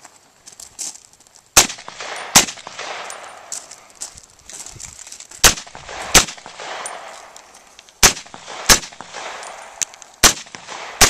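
Semi-automatic rifle firing eight shots in four quick pairs, the two shots of each pair about 0.7 s apart, each shot trailing off in echo. The rifle is cycling and firing again after work on its spring, and the shooter judges it all right.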